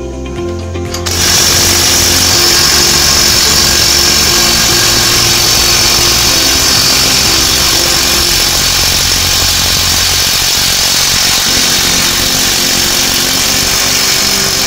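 Mailtank cordless impact wrench hammering without a break from about a second in, trying to undo a nut tightened to 27 kilo (about 270 N·m) on a torque-test rig. Background music plays underneath.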